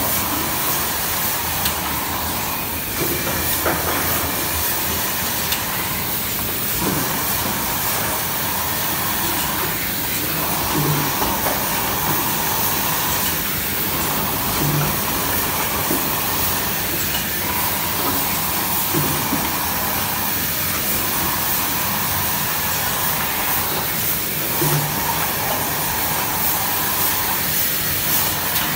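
GD 210 dry offset bucket printing machine running: a steady mechanical hiss and rumble, with a cycle that repeats every three to four seconds.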